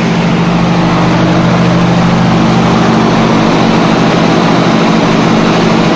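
5-KSM V-type piston air compressor running steadily, heard close up: a loud, even mechanical hum and drone that does not change.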